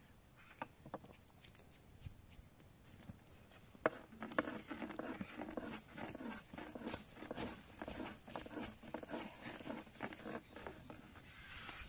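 Irregular small clicks and knocks of objects being handled, busier from about four seconds in, with a faint muffled murmur underneath.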